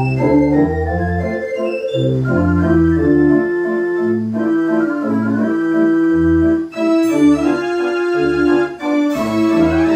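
Bursens dance organ playing a tune: low bass notes alternate with chords under the melody pipes, and a quick rising run comes near the end.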